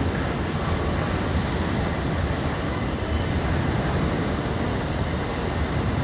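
Freight train passing close by, wagons rolling over the rails with a steady noise of wheels on track.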